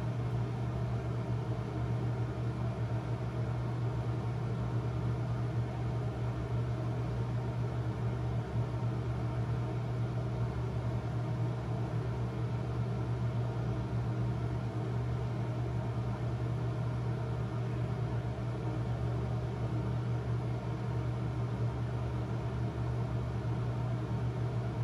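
Bathroom exhaust fan running with a steady low hum and an even whooshing noise.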